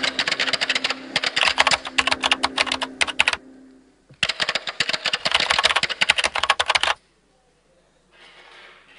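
Computer keyboard typing sound effect: two runs of rapid key clicks, each about three seconds long, the second starting about four seconds in, as on-screen text is typed out.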